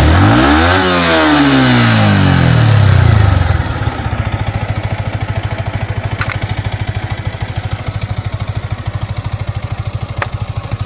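Yamaha MT-15 BS6's single-cylinder engine on its stock exhaust, revved: the revs dip, climb again and hold high, then fall back to a steady idle after about three and a half seconds. Two sharp clicks come during the idle.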